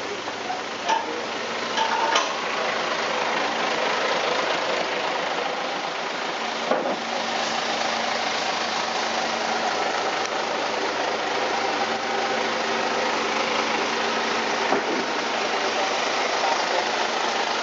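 Heavy construction machine's engine running steadily, with a few short knocks and clanks over it.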